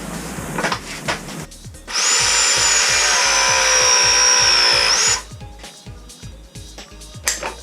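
A battery-powered tool motor runs for about three seconds. Its whine sags slowly under load, then rises briefly just as it cuts off. A few metal clicks and knocks follow near the end.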